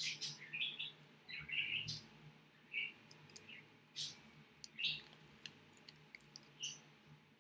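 A small square of foil origami paper being folded and creased by hand: irregular soft crinkles and clicks.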